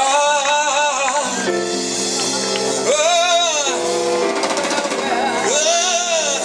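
Live gospel music: a singer holds long, wavering notes over a band's sustained chords, in three phrases.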